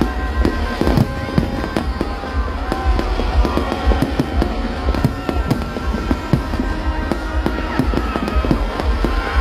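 Aerial fireworks display bursting in rapid, continuous succession: a dense run of sharp bangs, several a second, over a steady low rumble.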